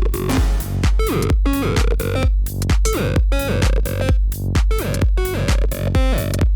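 Electronic dance music: a steady drum-machine kick under repeating synthesizer stabs.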